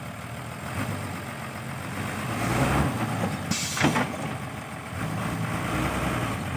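Dump truck's diesel engine running, with a short hiss of air about three and a half seconds in.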